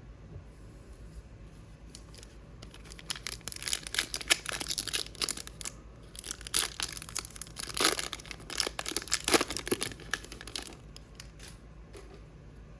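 Foil wrapper of a hockey trading-card pack being torn open and crinkled, in a run of tearing and crinkling noises from a couple of seconds in until near the end.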